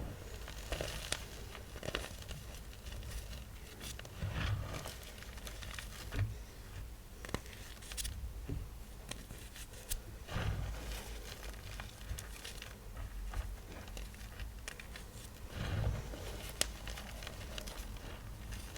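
Small blocks of dyed gym chalk (magnesium carbonate) being crushed, crumbling in a run of irregular crunches and crackles, with a few louder, heavier crushes several seconds apart.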